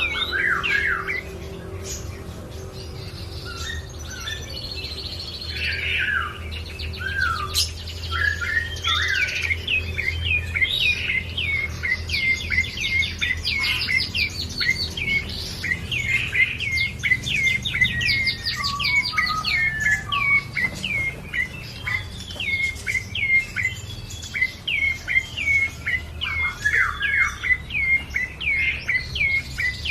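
Prenjak coki songbird singing continuously in rapid, repeated high chirps, many of them sharp downward sweeps, in a busy unbroken run. A steady low hum lies underneath.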